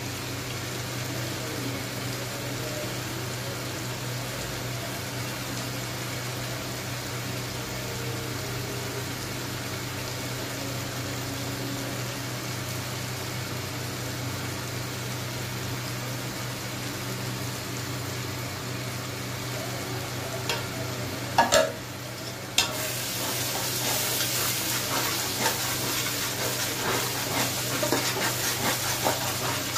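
Masala for chicken pulao frying in an aluminium pot: a steady sizzling hiss over a low hum. About two thirds of the way in, a steel spatula knocks a few times against the pot, and after that the sizzling is louder, with scraping as the mixture is stirred.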